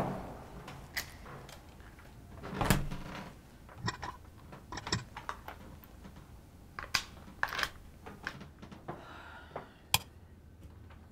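An apartment door being opened and shut, then its deadbolt locks turned by hand: a series of clicks and knocks, the loudest right at the start and about three seconds in, with a last sharp click near the end.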